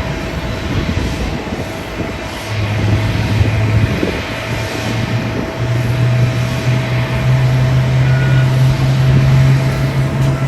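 Jet airliner engines running at an airport: a steady rumble with a constant whine. A low hum sets in a couple of seconds in and grows louder after the midpoint.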